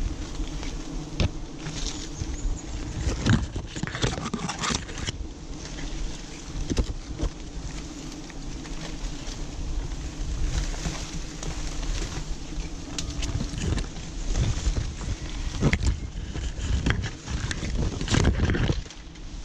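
Leaves and banana-leaf wrappings rustling and scraping, with irregular knocks against branches, as someone climbs a tree. A steady low hum runs underneath.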